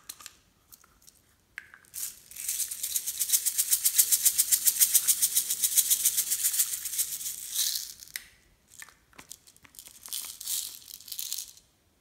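Small beads rattling inside a clear plastic bottle shaken quickly and evenly, like a maraca, as they spill out. A long run of shaking is followed by a shorter second run near the end.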